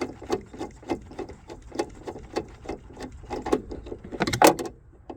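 Ratchet wrench clicking steadily, about three or four clicks a second, as it backs out a seat belt anchor bolt, with a louder clatter of metal about four seconds in.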